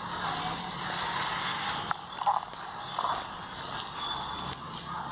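Night chorus of calling animals: one high chirp pulsing evenly about four times a second over a faint hiss of other calls, with two short lower calls near the middle.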